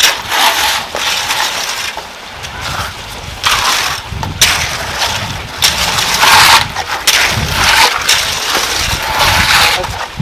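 Repeated scraping and crunching of stone, sand and mortar being worked by hand, in irregular strokes of half a second to a second.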